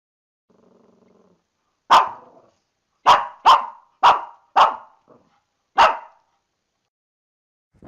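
A dog barking six times in short single barks, the first about two seconds in and the rest in a quick run, preceded by a faint low growl.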